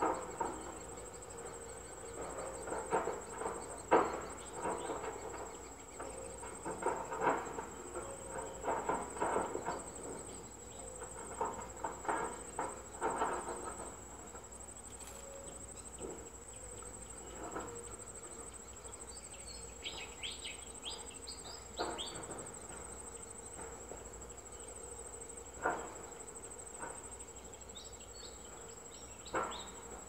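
A steady, high-pitched insect trill with a slight pulse, typical of crickets, under irregular rustling clicks and knocks that are loudest in the first half. A brief cluster of short high chirps comes about twenty seconds in and again near the end.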